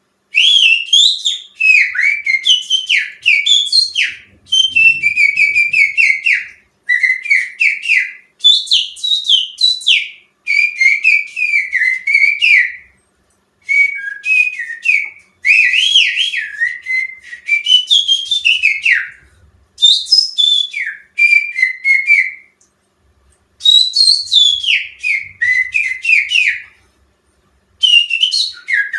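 A person whistling through their fingers in imitation of a greater green leafbird (cucak ijo) song, as a lure sound to set caged birds singing: loud, quickly sliding and warbling whistle phrases, each a second or two long with short breaks between.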